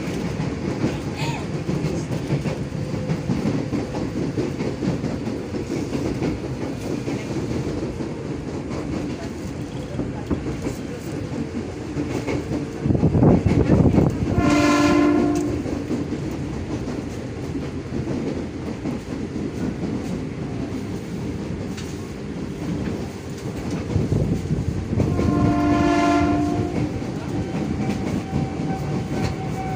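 Electric commuter train running, heard from inside the passenger car: a steady rumble with wheels clicking over the rail joints, and a louder rush of noise about halfway through. A train horn sounds twice, about ten seconds apart, each blast a second or two long.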